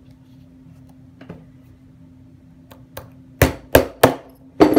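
Hammer striking a small flathead screwdriver set against a ball bearing inside a brushless drone motor's base, to knock the bearing out of its seat. A few light taps come first, then four sharp, ringing strikes in quick succession near the end.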